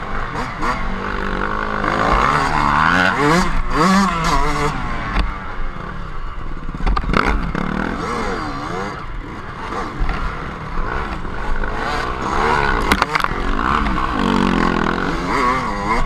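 Dirt bike engines revving up and down over and over, their pitch climbing and dropping with the throttle, with scattered clattering knocks from the bikes.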